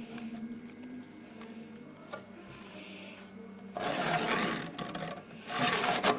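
Pencil scratching on planed timber as lines are marked along a metal square. There are two strokes, the first starting about four seconds in and lasting about a second, the second shorter near the end, over a faint steady hum.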